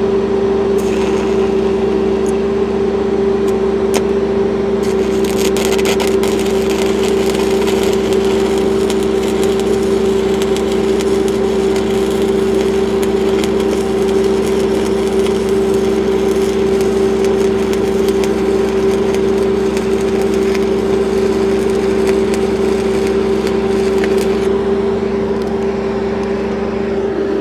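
Stick-welding arc from a cellulose-flux electrode (6010/8010 type), crackling and sputtering steadily as a downhill pass is run around 6-inch schedule 80 pipe, over a steady machine hum. The crackle stops about three seconds before the end as the arc is broken.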